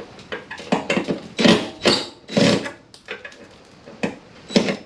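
Cordless drill-driver backing out two self-tapping screws from the car body's sheet metal, run in a series of short, irregular trigger bursts.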